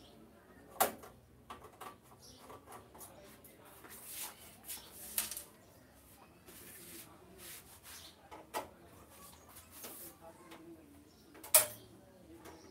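Scattered metallic clicks and knocks of a screwdriver and loose screws being handled against a photocopier's sheet-metal top plate, with the sharpest clink near the end.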